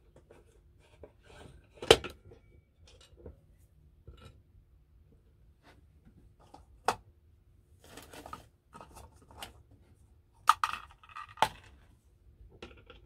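Small hand tools and a screwdriver clicking and knocking against a vintage Salter milk scale and the workbench while the dial's screws are undone. The loudest knock comes about two seconds in, with others near seven seconds and a quick pair at ten to eleven seconds, and a short scratchy rustle around eight seconds.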